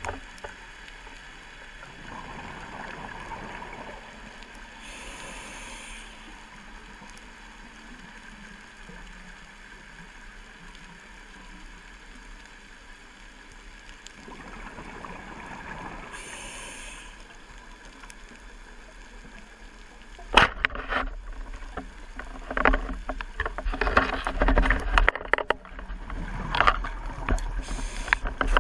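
Underwater sound through a camera housing: a scuba diver's regulator breathing, with a burst of exhaled bubbles about every eleven seconds. About twenty seconds in comes a sharp knock, then louder irregular clicks and clatter as the pole spear with the speared lionfish is worked against the device.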